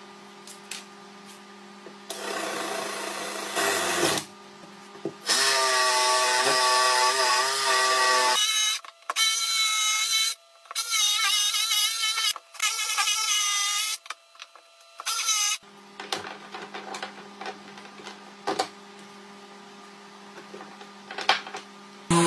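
A cordless DeWalt drill boring a starter hole through a solid-wood desktop, then a DeWalt cordless jigsaw cutting out a rectangular opening in about five short runs with brief pauses between them. The jigsaw's motor whine wavers in pitch as it cuts.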